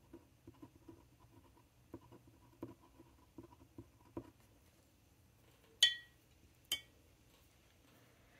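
Glass dip pen scratching and ticking faintly on a paper swatch card as a few letters are written. Then come two sharp clinks with a short high ring, about a second apart, which are the loudest sounds.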